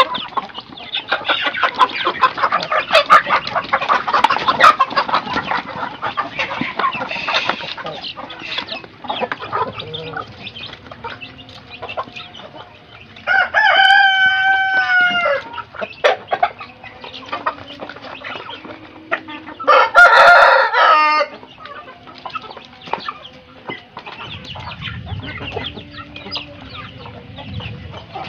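A flock of Indonesian village chickens (ayam kampung, some crossed with Bangkok fighting cocks) clucking and pecking at feed in a dense patter of clicks. About halfway through a rooster crows once, and a second, shorter crow follows about seven seconds later.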